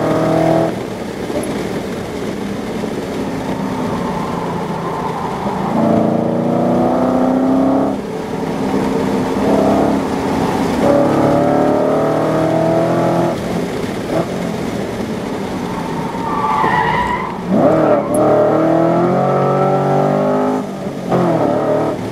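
Holden Commodore SSV's V8 engine heard from inside the cabin under hard track driving. It pulls up in pitch again and again, with short drops as it lifts or shifts. About three-quarters of the way through there is a brief tyre squeal.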